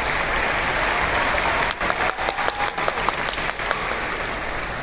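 Audience applauding, with a run of sharper, nearer claps standing out in the middle and the clapping easing off slightly near the end.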